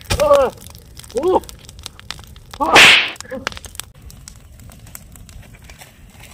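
Burning stick effigy crackling with many small sharp pops, over which a man gives short cries, the loudest a yell about three seconds in.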